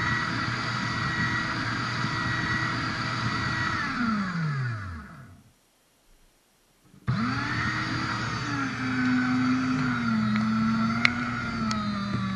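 Electric motor of a cardboard shredder running steadily, then switched off about four seconds in and winding down to silence with a falling whine. After a second and a half of silence it starts again abruptly, whines up to speed, and settles at a lower pitch that drops in steps, with a sharp click near the end.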